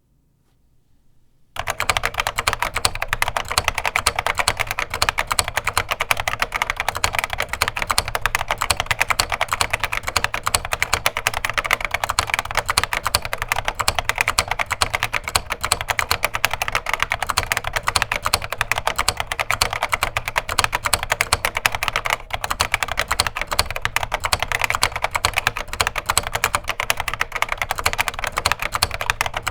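Continuous fast typing on a vintage Yuxing Computer Learning Machine keyboard with HXJ-1 mechanical switches: a dense, even clatter of keystrokes that starts about a second and a half in.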